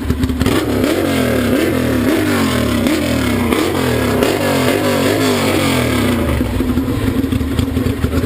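An engine revved over and over, loud, its pitch rising and falling about one and a half times a second.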